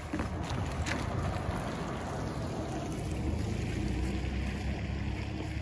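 A pickup truck driving past over wet pavement, its tyres hissing, the hiss fading after about three seconds as it goes by. A low rumble of wind on the microphone runs underneath and grows louder toward the end.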